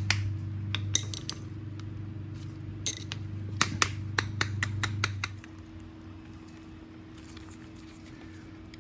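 Metal tool clicking and clinking against the carburetor as its float bowl bolt is worked loose, in irregular sharp clicks during the first five seconds. A steady low hum runs under them and stops about five seconds in.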